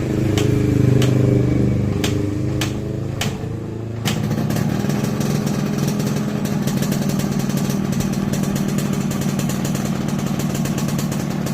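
Yamaha RX-King's two-stroke single-cylinder engine running during its final carburettor setting: for the first four seconds its note wavers with a few sharp clicks, then it changes abruptly to a steady idle.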